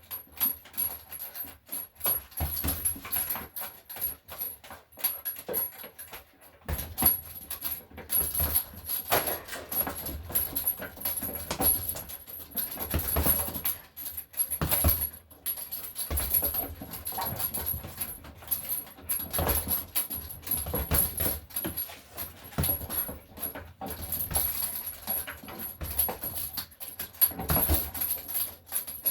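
A dog, heard amid irregular knocks and scrapes throughout.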